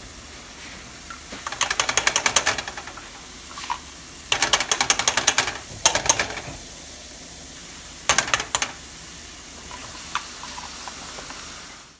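Plastic garlic crusher worked by hand over a stainless pan of onions, giving four short bursts of rapid clicking.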